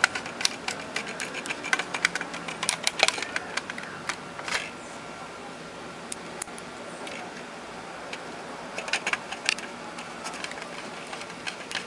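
Phillips screwdriver clicking and scraping against the screws of a wireless microphone receiver's back panel as they are turned: a quick run of small ticks for the first few seconds, a lull, then more ticks near the end.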